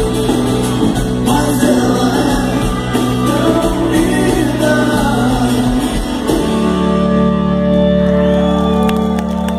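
Live rock band, with electric bass, electric guitar and drums, playing behind a male lead singer. About two-thirds of the way through, the singing stops and the band holds one long steady chord.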